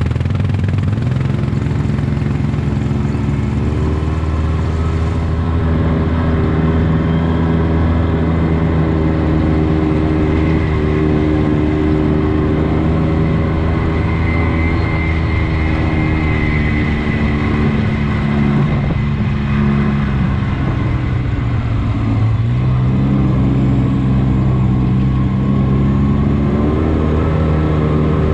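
Engine of a Polaris RZR side-by-side running steadily while riding. Its pitch drops a little past twenty seconds in, then climbs again as it is throttled back up.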